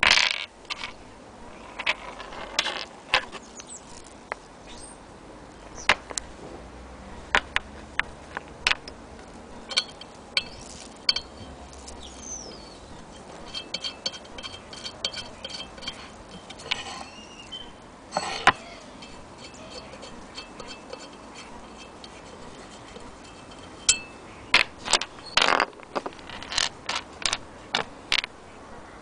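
Scattered clicks, taps and metallic clinks of a screwdriver and small metal parts being handled on a cast-iron sewing-machine hand crank, with a faint ringing for a few seconds in the middle and a run of quicker clicks near the end.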